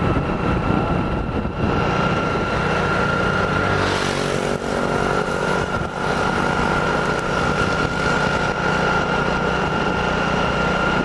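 Motorcycle engine running steadily at cruising speed, with road and wind noise; a brief rush of hiss comes about four seconds in.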